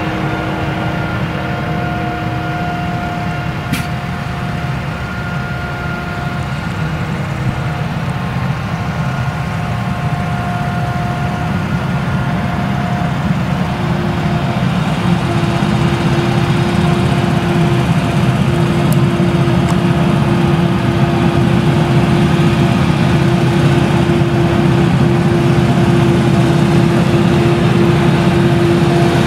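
Claas Jaguar 970 forage harvester's MAN V8 engine running under load while chopping sorghum: a steady low drone. A steady hum joins about halfway through and holds, growing slightly louder toward the end.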